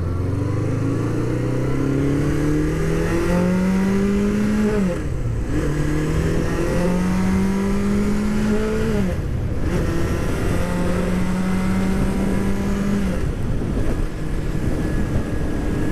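1981 Honda CB650's inline-four engine on its stock exhaust, accelerating hard to about 5,000 rpm through the gears. The engine note climbs, drops with an upshift about five seconds in and again about nine seconds in, climbs once more, then settles to a steady cruise near the end.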